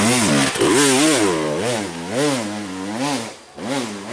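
KTM enduro dirt bike engine revving up and down repeatedly, about twice a second, as the rider works the throttle on a steep dirt hill climb. The engine note drops away briefly about three and a half seconds in, then picks up again.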